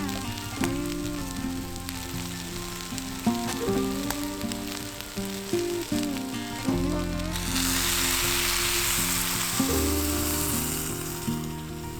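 Food sizzling in a frying pan, the sizzle swelling into a loud hiss a little past halfway and easing off near the end, under instrumental background music.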